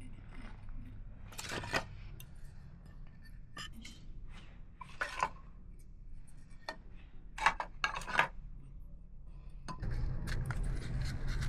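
Scattered clinks, knocks and scrapes of pots and utensils being handled in kitchen work. A low steady rumble starts near the end.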